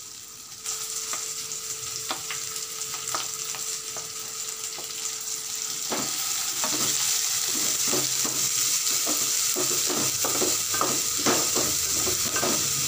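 Shallots, green chillies and curry leaves sizzling in hot oil in a stainless steel pot, with ginger-garlic paste added to sauté. The sizzle grows louder about half a second in. From about halfway through, a wooden spatula stirs and knocks against the pot several times a second.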